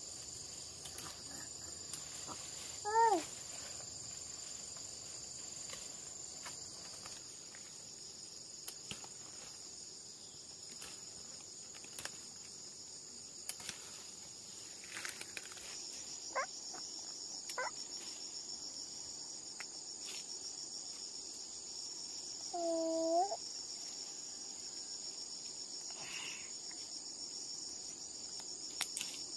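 Steady high-pitched insect chorus, with a second pulsing insect trill joining about halfway through. Scattered small snaps and rustles come from leaves being picked, and there are a few short vocal sounds from the baby.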